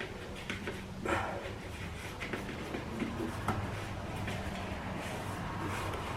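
Faint handling sounds of foam weatherstrip tape being fitted into a fridge shelf slot: soft rustles and light clicks, a slightly louder one about a second in, over a low steady hum.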